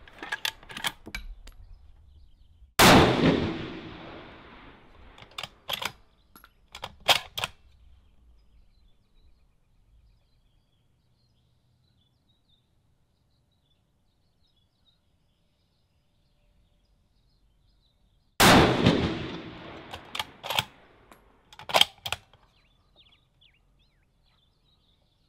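Two shots from a 6.5 Creedmoor bolt-action rifle on a Defiance anTI action, about fifteen seconds apart, each ringing on for a second or two. After each shot comes a few short metallic clicks as the bolt is worked to eject and chamber the next round.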